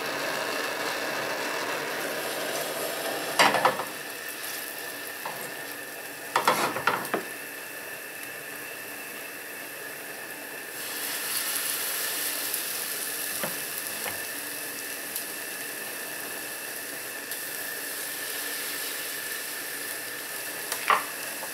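Zucchini fritter batter sizzling in hot vegetable oil in a frying pan, as spoonfuls of batter are dropped in. The sizzling grows louder about halfway through, and a few short knocks and scrapes of a metal spoon against the bowl and pan cut through it.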